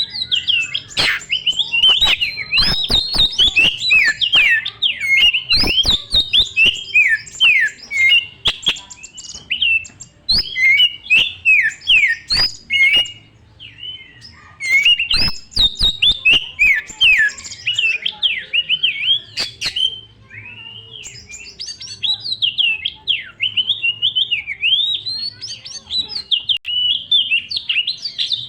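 Oriental magpie-robin (kacer) singing a fast, varied song of whistled phrases with sharp clicks mixed in, pausing briefly twice.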